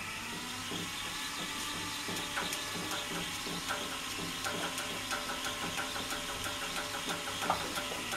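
Hand-cranked Wimshurst electrostatic machine running, its counter-rotating discs and drive turning with a steady mechanical whir. Small sharp ticks come in a few seconds in and grow more frequent, with one louder click near the end.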